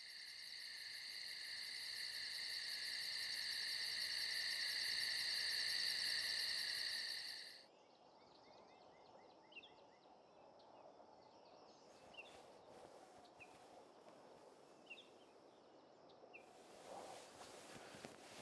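Loud, fast-pulsing insect chorus that cuts off abruptly about seven and a half seconds in. It gives way to quiet outdoor ambience with faint scattered bird chirps and a few soft clicks.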